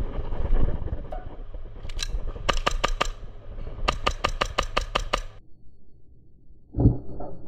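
Airsoft guns firing: a couple of shots, then two rapid bursts of sharp cracks at about seven a second, over low rumbling handling noise. The shooting stops abruptly, and two dull thumps follow near the end.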